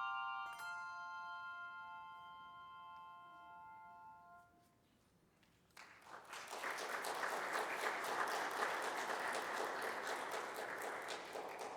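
A final bell-like chord rings and fades away over about five seconds. A crowd then applauds for about five seconds.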